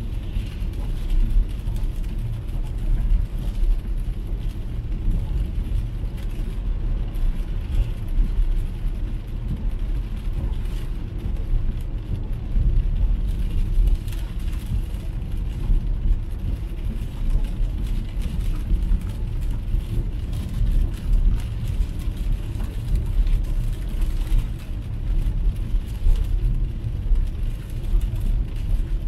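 Cabin noise of an MG ZS EV electric car driving on a wet road in heavy rain: a steady low rumble of tyres on wet tarmac under a hiss of rain and spray, with no engine sound.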